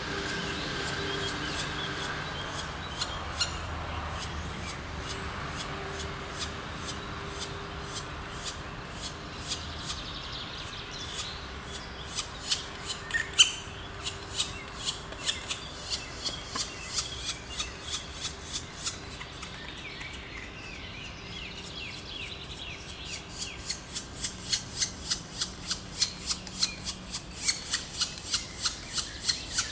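Black woodpecker nestlings begging with short rasping calls in a steady rhythm. The calls start at about one a second and quicken to two or three a second. Other birds chirp faintly in the background.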